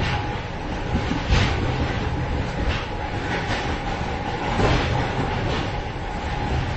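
Moving train heard from inside the vestibule between cars: a continuous rumble of wheels on the rails with irregular clanks and rattles, about five sharper knocks spread through, over a faint steady hum.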